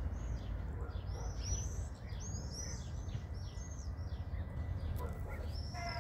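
Small birds chirping: a run of short, arched high notes about three a second, stopping about five seconds in, over a steady low rumble.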